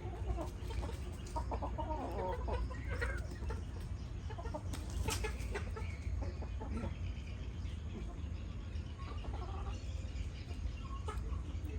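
Chickens clucking in short, scattered calls, with a few sharp clicks about five seconds in and a steady low rumble underneath.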